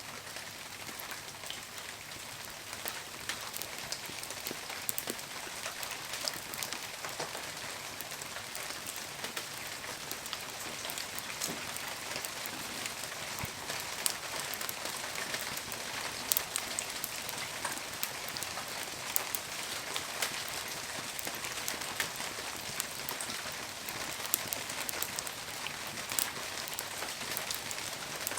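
Wood bonfire burning: a steady hiss with many sharp crackles and pops from the burning firewood.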